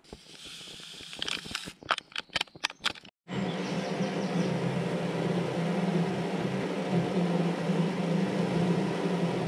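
A pot of water heating over a folding solid-fuel tablet stove, giving a steady rumbling hiss as it comes up toward the boil. About two seconds in there is a quick run of sharp clicks and knocks, followed by a short dropout before the steady sound sets in.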